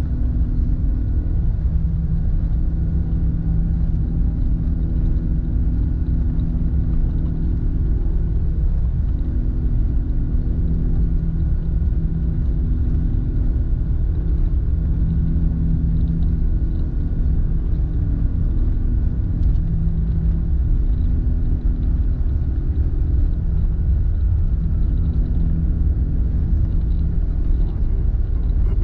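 Airbus A380 cabin noise from a window seat over the wing while taxiing: a steady low rumble of the Rolls-Royce Trent 900 engines and the rolling gear, with a low hum that comes and goes.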